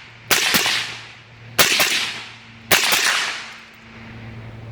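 Three suppressed rifle shots, a little over a second apart, from a Daniel Defense MK18 short-barrelled rifle fitted with a SilencerCo Saker 7.62 suppressor. Each is a sharp supersonic crack that trails off in a long echo.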